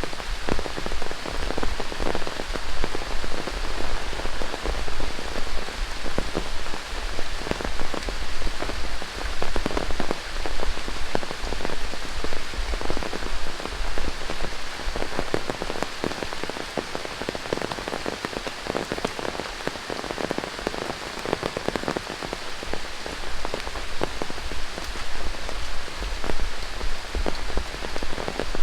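Heavy tropical rain falling steadily through rainforest, a dense hiss dotted with many close individual drop hits. Under it are low thuds at a walking pace, about one or two a second, from footsteps on the trail.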